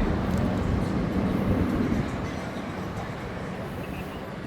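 Road traffic noise: a passing vehicle fades away over the first two seconds, leaving a steady low hum.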